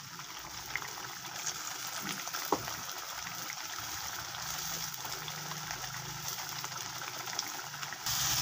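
Watery chili-shallot spice paste bubbling and sizzling in a wok as it cooks down, a steady soft hiss. About 8 seconds in it jumps to a louder frying sizzle as the paste thickens.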